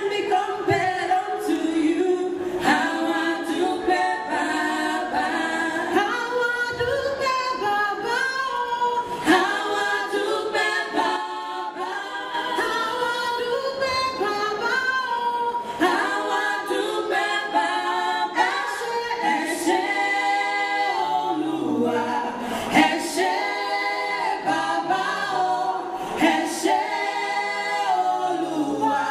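A group of women singing together without instruments into handheld microphones, voices joining in a call-and-response style.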